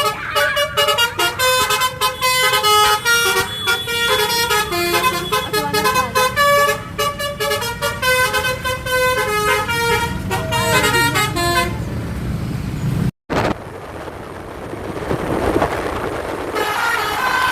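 Bus telolet (basuri) musical air horn playing a fast tune of quick-changing notes over a running engine. About thirteen seconds in it breaks off suddenly and gives way to engine and street noise. The horn notes start again faintly near the end.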